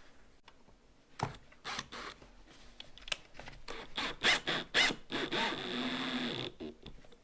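Cordless drill turning a Phillips bit against a screw hole in the boat's fiberglass, grinding back the hole's edges to keep the fiberglass from cracking: a run of short, uneven scraping bursts, with a longer steady stretch past the middle.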